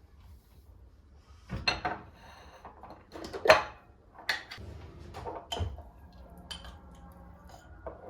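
Kitchenware being handled: a series of about six separate knocks and clinks of dishes or utensils set down or moved, some ringing briefly, the loudest about halfway through.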